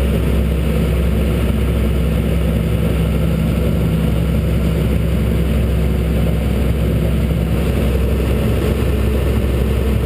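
An engine running steadily with a low, even drone that holds the same speed throughout.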